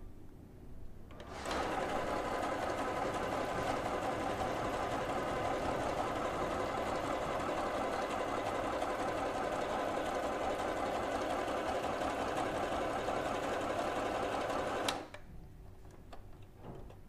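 Huafeng FHSM-618 household sewing machine running steadily on its low-speed setting, sewing decorative stitch number 9. It starts about a second and a half in and stops near the end with a click.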